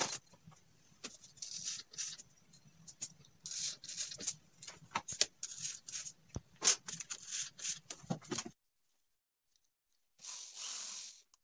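Rubbing, scraping and light clicks from glued foam-and-plywood hive walls being handled and pinned at the corners. After a short dropout near the end comes a brief burst of a hand drill boring into a corner.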